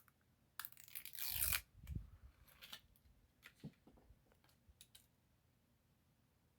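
Someone fumbling with a Japanese soda bottle that is hard to open: a short burst of tearing and crinkling packaging, a dull knock about two seconds in, then light handling clicks.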